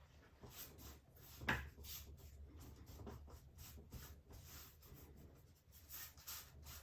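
Paintbrush with acrylic paint dragged across a canvas in repeated strokes, a faint scratchy brushing, with one sharper knock about one and a half seconds in. A low steady hum lies underneath.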